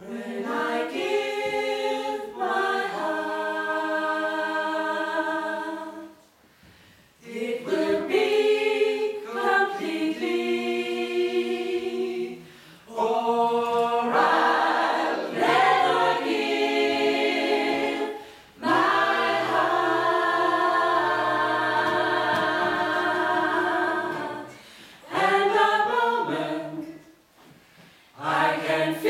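Small mixed a cappella vocal group of men and women singing close-harmony chords, held phrases broken by brief pauses for breath.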